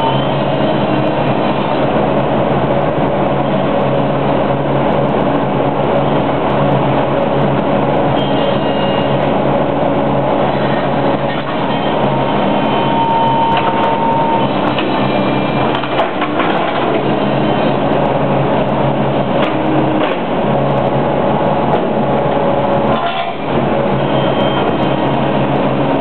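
A tracked excavator's diesel engine and hydraulics run hard under load as its bucket presses and pounds steel trench-shoring plates into the ground. Metal squeals come and go, with a few sharp clanks.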